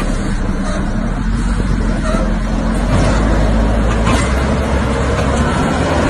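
Large Volvo wheel loader's diesel engine running hard under a heavy load, a steady low drone that gets a little louder about three seconds in.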